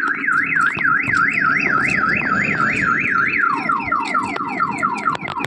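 Electronic alarm siren warbling up and down about three times a second, then switching about three and a half seconds in to quicker repeated falling sweeps, the changing-tone cycle of a car-alarm-style siren.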